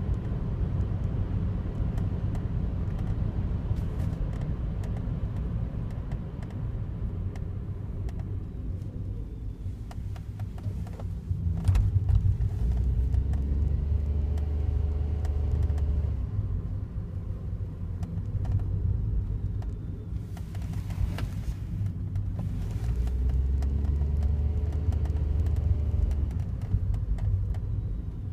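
Daihatsu Wake kei car running with a steady low rumble, its engine pitch rising and falling. Twice a deeper drone swells for a few seconds, with scattered faint clicks over it.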